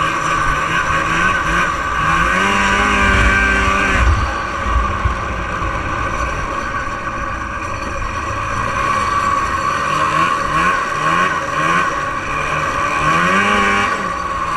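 1989 Arctic Cat Jag 440 snowmobile's fan-cooled two-stroke twin under way, running hard. Its pitch climbs about two seconds in and drops back, then rises and falls in several short sweeps near the end as the throttle is worked.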